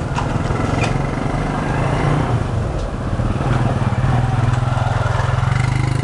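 A small engine running steadily, a low drone that grows louder in the second half. Two light clicks come in the first second as the metal lighter is handled.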